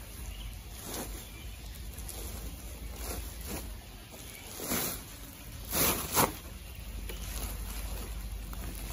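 Woven plastic sacks rustling and swishing as they are handled and pulled, in a series of short swishes with the loudest a little past the middle. A steady low rumble runs underneath.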